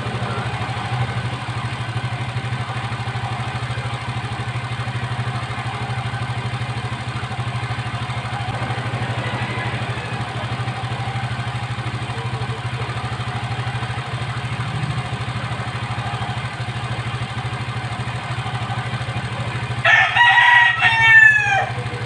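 A motorcycle engine idling steadily. A rooster crows near the end, with a fainter crow midway.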